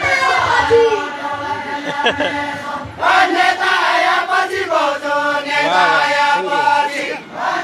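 Group of voices singing a Deuda, the Far-Western Nepali folk song of the Deuda dance, in a chant-like chorus. The long held notes bend and fall at the ends of phrases, with a short breath break about three seconds in.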